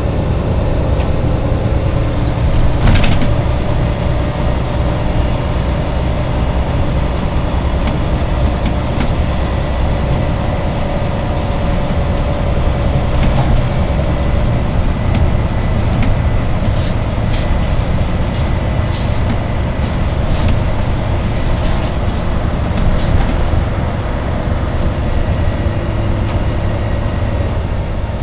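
Inside a moving Volvo B9TL double-decker bus: steady engine and road rumble with a thin hum held over it, sinking slightly in pitch over the first half, and occasional rattles and clicks from the bodywork.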